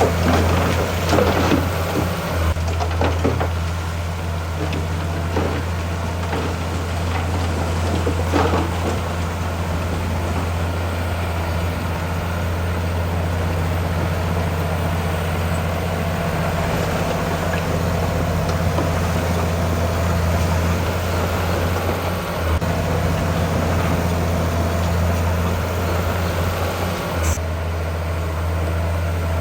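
Heavy diesel engine of earthmoving machinery running steadily, with a few short clatters in the first seconds and again about eight seconds in.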